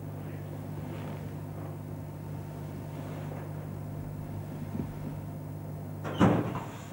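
A steady low electrical hum with faint movement noise underneath, broken about six seconds in by a single sudden loud thump that dies away within half a second.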